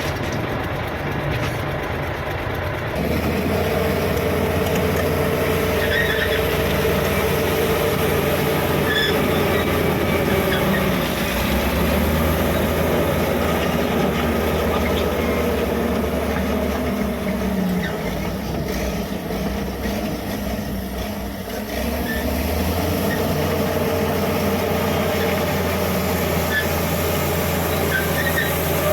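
Shantui SD16E bulldozer's diesel engine running under load, its note rising and falling several times as the machine works.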